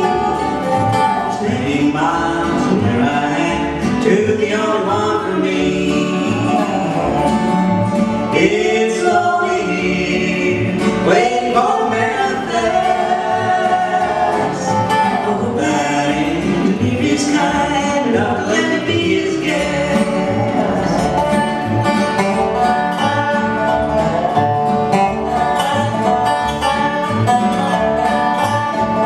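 Acoustic string band playing a country-blues tune: strummed acoustic guitar, a slide guitar played flat with a bar, its notes gliding, and upright bass.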